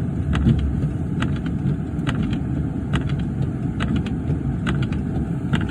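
Car driving on a snowy road, heard from inside the cabin as a steady low rumble, with pairs of short clicks repeating a little under once a second.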